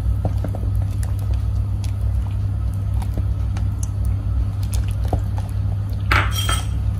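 Silicone spatula stirring hot milk in a pot as custard paste is poured in, with faint scrapes and light liquid sounds over a steady low rumble. A brief sharper sound stands out about six seconds in.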